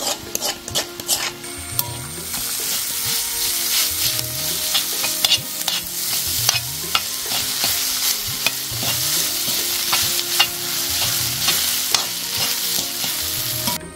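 Metal spoon stirring boiled potato and shredded chicken through a frying onion-masala mix in an iron kadai: the mix sizzles in oil while the spoon clicks and scrapes against the pan. The sizzle grows louder about two seconds in.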